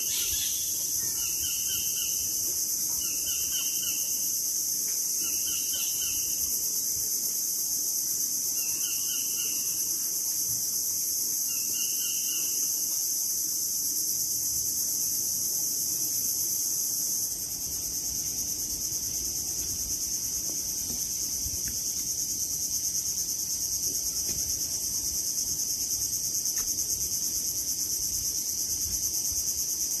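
Steady high-pitched chorus of crickets in a mangrove forest, with a bird calling about five times at intervals of two to three seconds in the first half.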